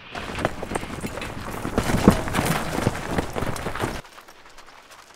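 Hurried running footsteps crunching on gravel and dirt, a quick uneven patter that stops abruptly about four seconds in.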